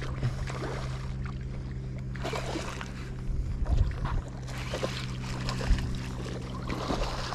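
A hooked spotted seatrout splashes at the surface while a baitcasting reel is cranked, with several short splashes. A steady low hum runs underneath.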